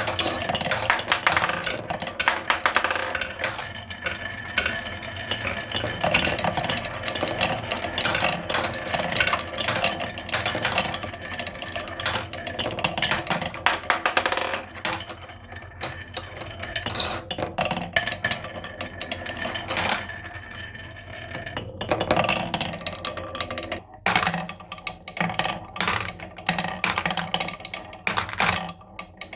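Many marbles rolling and clacking down wooden HABA marble-run slopes, a dense, irregular run of clicks and knocks.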